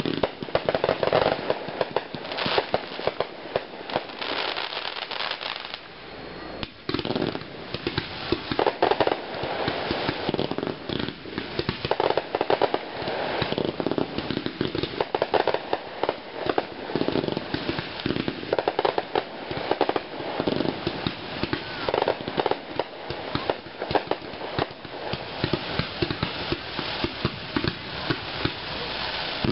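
Fireworks going off in rapid succession: a dense, continuous crackle of pops and bangs, with a short lull about six seconds in.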